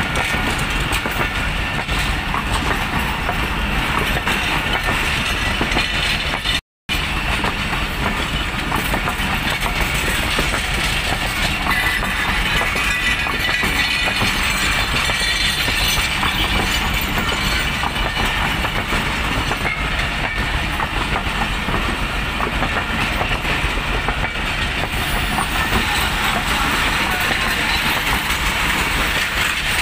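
Passenger coaches of an arriving Pakistan Railways express train rolling past, a steady rumble and clatter of wheels on the rails. The sound cuts out completely for a moment about seven seconds in.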